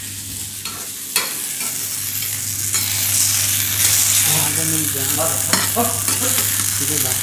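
Batter-coated rawas (Indian salmon) pieces sizzling as they fry in oil in a stainless steel pan. A metal spatula clicks and scrapes against the pan as the pieces are turned. The sizzle grows louder about three seconds in, over a steady low hum.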